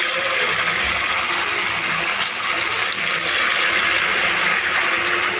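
Sabudana (sago) vadas deep-frying in a kadai of hot oil: a steady, even sizzle with crackling bubbles.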